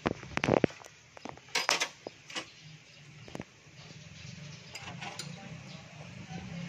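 Metal hand tools clinking and knocking against each other: a quick cluster of sharp clinks in the first second, then a few scattered ones. A faint low steady hum comes in underneath from about four seconds in.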